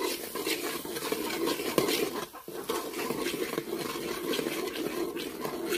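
Thick masala paste frying in oil in a metal pot, stirred and scraped round the pot with a steel spoon: a steady crackle with many small clicks, breaking briefly about two and a half seconds in.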